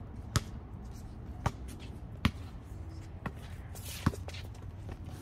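Basketball bouncing on a concrete court as it is dribbled: five sharp bounces at uneven spacing, about a second apart.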